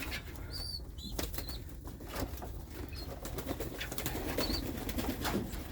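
White doves flapping their wings and shuffling about, with scattered sharp clicks and scuffs and a few faint high squeaks.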